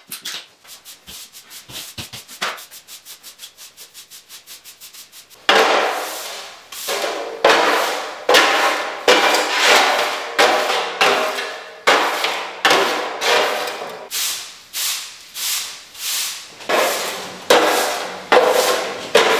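A broom sweeping a hard floor into a dustpan in repeated scraping strokes, a little more than one a second. Faint quick ticking comes first, and the strokes begin about five seconds in.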